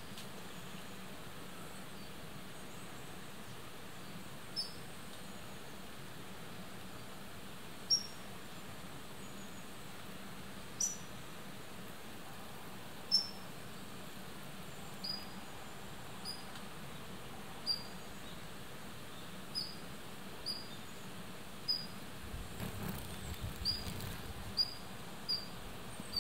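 Short, sharp high chirps, each dropping slightly in pitch, a few seconds apart at first and coming faster in the last few seconds, over a steady faint outdoor hiss. About four seconds from the end, a low rumble of the camera being handled joins in.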